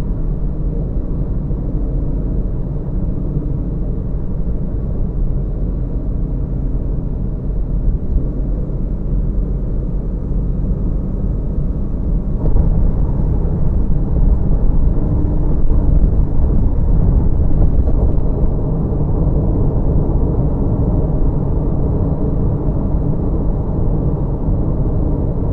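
Steady rumble of a car's tyres and running gear at freeway speed. About halfway through it gets louder and hissier, as the road changes from asphalt to grooved concrete pavement.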